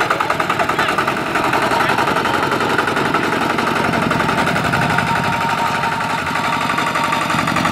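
Single-cylinder diesel engine of a two-wheel walking tractor running with a rapid, steady chugging while it pulls a trailer loaded with sacks of rice.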